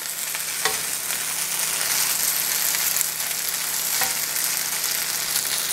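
Pad thai of rice noodles, shrimp and chicken sizzling steadily in a hot nonstick pan while being tossed with a spatula and fork, with a couple of light utensil taps against the pan.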